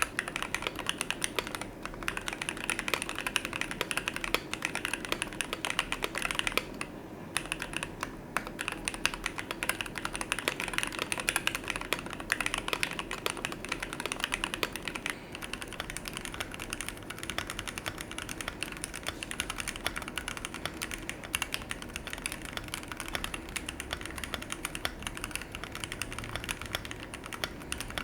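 Typing on a mechanical keyboard fitted with OEM-profile keycaps: a fast, continuous stream of key clicks, with a brief lull about seven seconds in.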